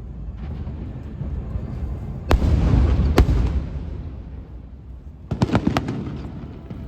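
Aerial fireworks shells bursting. There is a loud bang about two seconds in, then a second sharp report under a second later, both with a long rolling boom after them. Near the end comes a quick run of four or five crackling pops.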